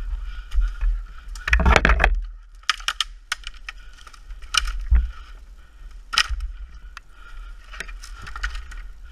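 Single-cylinder Honda trail motorcycle engine idling low. Over it come scattered knocks, scrapes and rustles as the bike is handled among fallen bamboo and brush. The loudest is a rough scraping rush about two seconds in.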